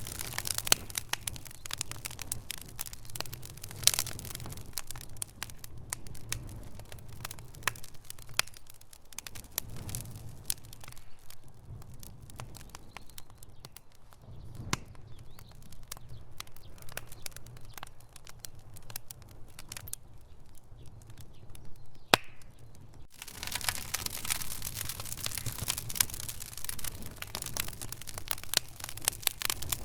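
Wood fire in a fireplace crackling and popping, with irregular sharp pops over a soft low rumble. About three-quarters of the way through the crackling turns abruptly denser and brighter.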